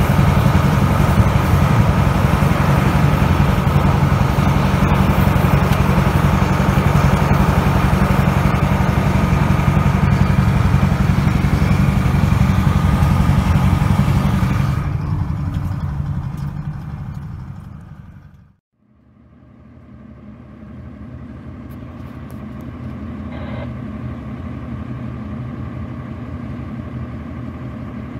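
Heavy truck engine running steadily and loudly, fading out about 18 seconds in; then another truck engine running more quietly.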